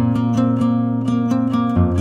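Background music: quick, evenly spaced plucked-string notes over a held bass note that drops in pitch near the end.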